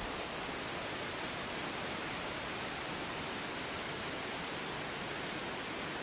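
A waterfall's steady rush of falling water, even and unbroken.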